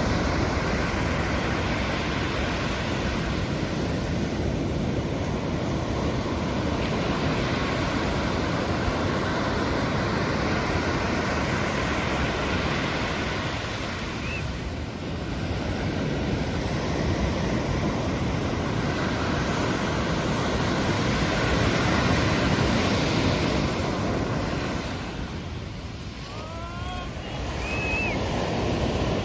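Pacific Ocean surf washing onto the beach: a steady rush of breaking waves that eases off twice, about halfway through and near the end, with some wind on the microphone. A few faint short rising chirps sound during the lulls.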